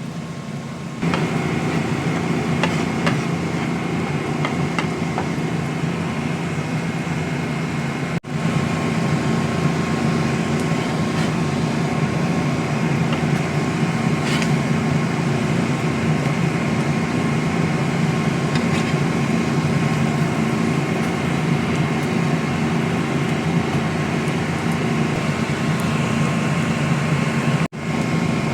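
A steady mechanical hum with a faint high whine over it, like a running kitchen appliance or fan. It gets louder about a second in and cuts out briefly twice.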